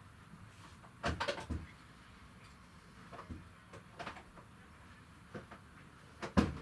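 Scattered knocks and clatter of cupboard doors and items being handled: a short cluster about a second in, a few light clicks in the middle, and a sharper knock near the end.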